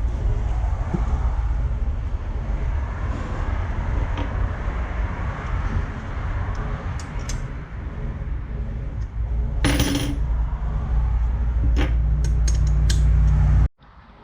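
Metal-on-metal clinks and clatter of wrenches and turbo housing bolts being worked loose, with the loudest clink about ten seconds in and a quick run of clinks near the end. A steady low background hum runs underneath and cuts off suddenly near the end.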